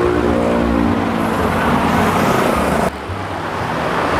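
Road traffic on a busy street, with a large bus's engine running close by. About three seconds in the sound cuts abruptly to quieter traffic.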